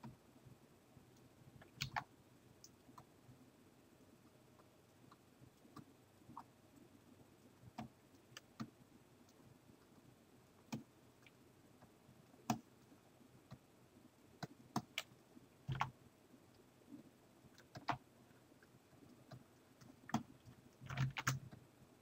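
Faint, irregular taps and clicks of a computer keyboard, single clicks spaced seconds apart with short clusters about two seconds in, around sixteen seconds, and near the end.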